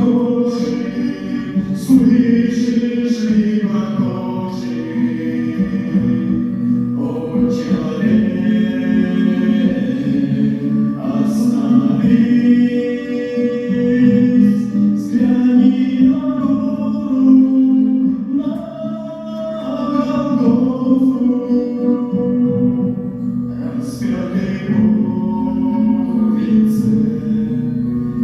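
A song: voices singing a slow melody with musical accompaniment.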